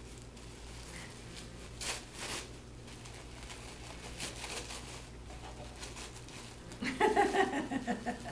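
Gift wrapping crinkling and tearing as a present is unwrapped by hand, in short scattered rustles, with a brief wordless voice sound near the end.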